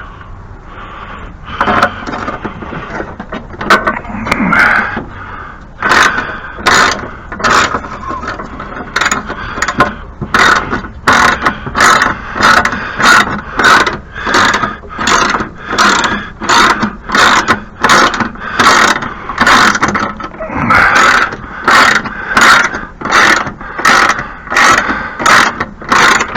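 Hand ratchet wrench being worked back and forth on a snowblower's bolts, a sharp ratcheting stroke about four times every three seconds. Irregular metal clattering comes before the strokes settle into their rhythm.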